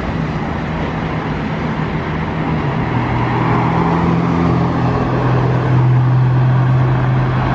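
A motor vehicle running steadily, its engine hum over loud road and wind noise. The engine's pitch drops about three seconds in, then holds.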